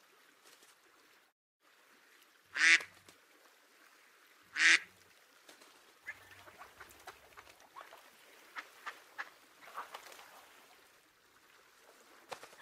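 Duck quacking: two loud, short quacks about two seconds apart, played by Google's 3D augmented-reality duck. Faint light ticks are scattered around them.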